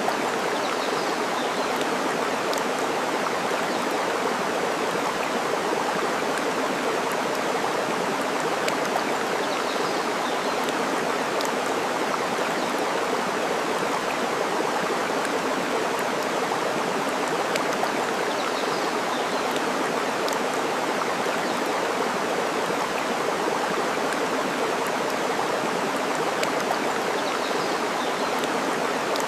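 Steady rushing of running water, with a few faint crackles of burning wood and occasional faint bird chirps.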